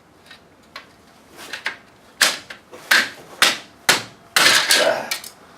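A run of about six sharp plastic knocks and clacks, then a longer, louder rattling scrape near the end: a plastic wheel beauty ring being handled and knocked against a steel rally wheel.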